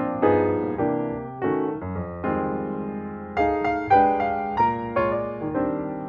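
Background piano music: a melody of struck notes and chords, each starting sharply and fading.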